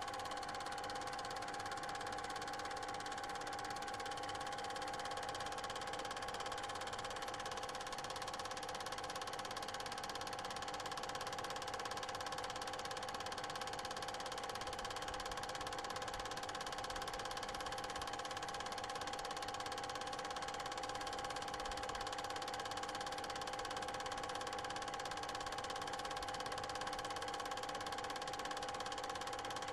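Steady mechanical whirr and hum of a running cine projector: several fixed tones over a constant hiss, unchanged from shot to shot.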